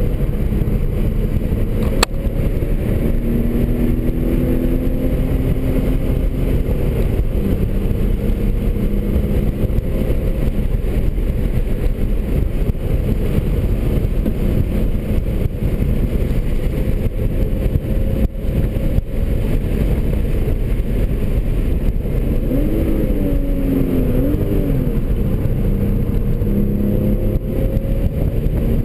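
2003 BMW 330i's 3.0-litre inline-six engine, heard inside the cabin over a heavy drone of road noise, revving under hard driving; its pitch repeatedly climbs and drops back as the car is driven through gears and corners. A sharp click about two seconds in.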